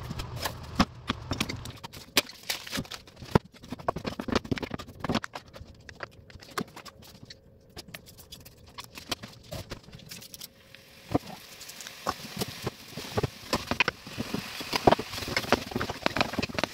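Clicks, taps and rustles of kitchen handling, then from about ten seconds in raw minced meat sizzling in a hot frying pan, with taps and scrapes as it is pushed around the pan.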